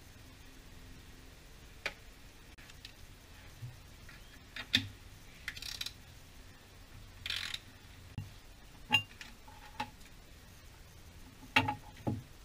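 Scattered light metallic clicks, taps and short rattles as a metal heat shield is offered up to the car's underbody and its fasteners are done up by hand.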